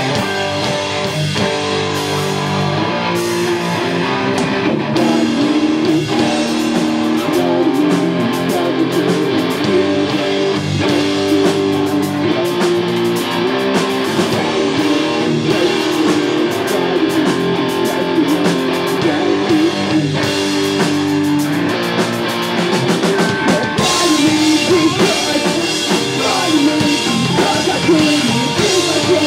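Live pop-punk rock band playing: electric guitars, bass and drum kit. The cymbals and drums get busier and brighter near the end.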